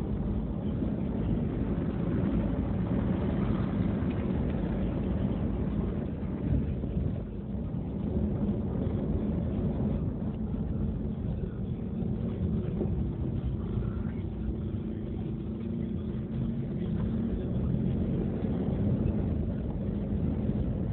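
Car engine and tyre noise heard from inside the cabin while driving on an unpaved dirt track: a steady low rumble.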